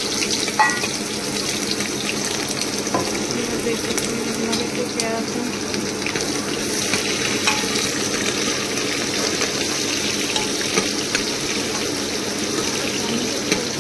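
Sliced onions sizzling steadily in hot oil in an open aluminium pressure cooker, stirred with a metal spoon that knocks lightly against the pot a few times.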